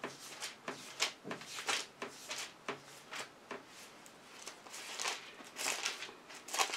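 Pages of a Bible being leafed through: a run of short, soft paper rustles, busiest about a second in and again near the end, while the passage is looked up.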